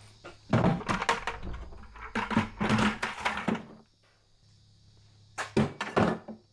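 Plastic buckets dropped and nested into a plastic tote, a run of clattering knocks over about three seconds. Near the end come two sharper knocks as a long-handled tool is set into the tote.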